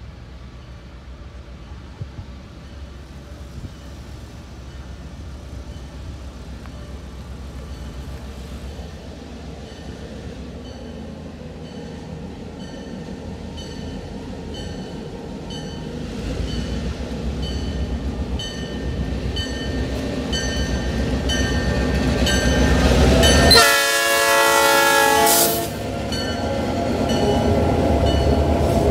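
Diesel locomotive approaching and passing, its engine rumble and wheel noise growing steadily louder, with a bell ringing at an even pace. About two-thirds of the way in, the locomotive's horn sounds one loud blast of about two seconds.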